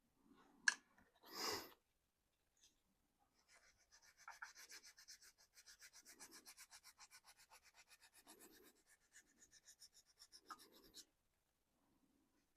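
Faint, rapid brush scrubbing over the painted surface of a 3D-printed RC car body, about six short strokes a second for some seven seconds, wearing through the top paint layer to weather it. A single click comes near the start.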